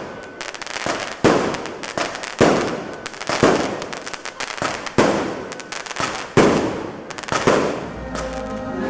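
Aerial fireworks bursting about once a second, each bang trailing off with crackling. Near the end, music takes over.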